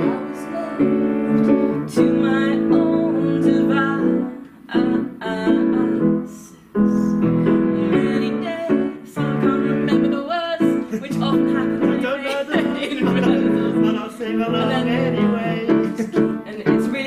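Grand piano playing a piece, with a voice singing along at times.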